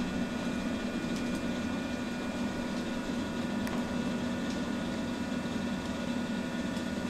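Steady hum from a Shinano Railway 115 series electric train's equipment, with several tones that hold one pitch.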